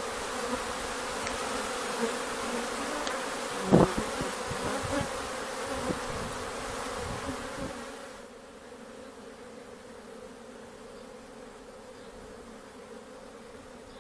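Steady hum of many honeybees flying in and out at the hive entrances, foragers working a white acacia nectar flow. One brief louder sound comes about four seconds in, and after about eight seconds the hum continues more quietly.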